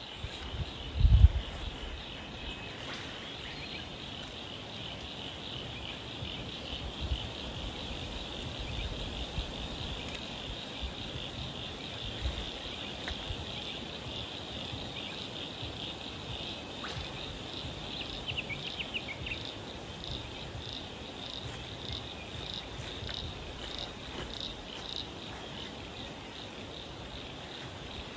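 A steady, high, shrill chorus of insects chirping in the bush, with a brief low thump about a second in.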